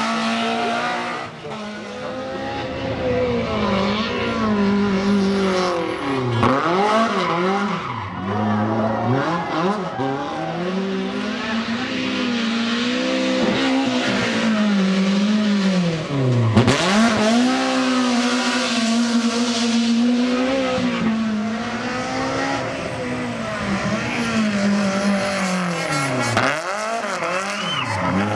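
Rally car engines at full throttle on a stage, revs rising and falling through gear changes and lifts for corners, with several deep dips where a driver backs off before accelerating again.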